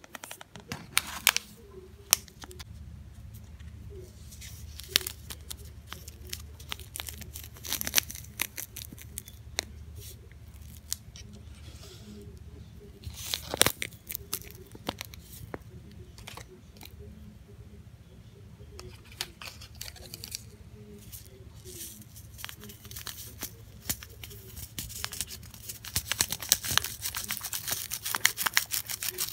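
Paper sugar packets being handled, torn open and crinkled over a coffee cup. There are scattered sharp clicks and taps through the first part, and a dense run of tearing and crinkling near the end. A steady low hum runs underneath.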